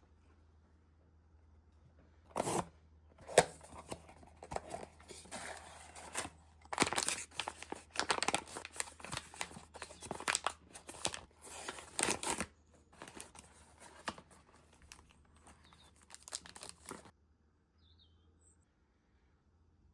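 Blind-box packaging being torn open and crinkled by hand: a run of sharp rips and rustles that stops abruptly about three seconds before the end.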